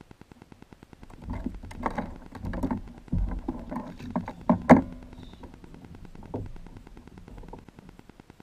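Knocks, clicks and rustles of fishing tackle being handled in a plastic kayak, the sharpest knock a little before the five-second mark. Under it a steady, rapid buzzing pulse: interference from a wireless microphone.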